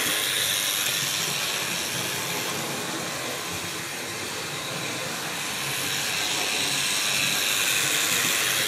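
Hornby model steam locomotive of 46201 Princess Elizabeth running on the track in reverse, its electric motor and freshly cleaned wheels giving a steady high-pitched hissing whir. The sound fades somewhat in the middle and grows louder again toward the end.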